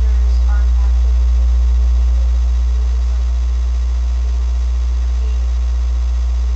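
Loud, steady deep hum that drowns the recording, a fault in the sound that makes the audio poor.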